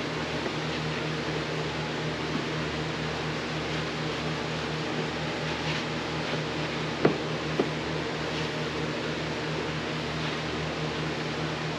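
Steady hum of a fan motor running, with two light knocks about seven seconds in.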